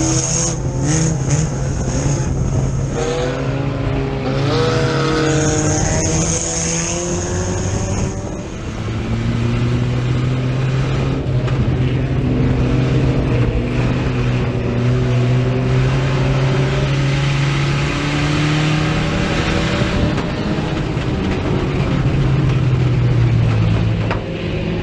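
Engine of a USRA Tuners dirt-track race car at racing speed, heard from inside its cockpit, rising and falling in pitch as the driver gets on and off the throttle around the track. A thin high whine comes and goes during the first eight seconds.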